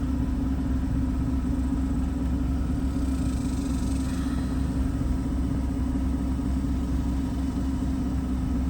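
Stage 2 cammed 5.7 Hemi V8 idling steadily, sounding rough. The owner reads it on the wideband as running a little rich.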